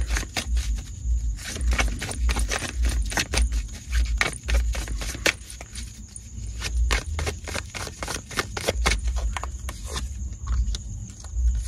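Tarot cards shuffled by hand: a quick, irregular patter of card flicks and slaps, with dull low bumps of the hand and deck.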